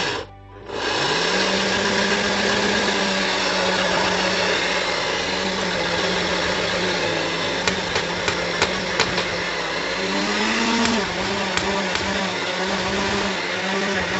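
Countertop blender starting up about a second in and running steadily at high speed, grinding dry pumpkin seeds into powder. A few sharp ticks come through around the middle, and the motor's pitch sags briefly and recovers about ten seconds in.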